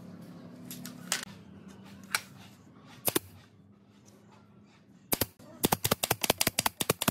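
Pneumatic brad nailer fired into a pine board, a fast string of about a dozen sharp cracks in under two seconds near the end, after a few separate knocks earlier on.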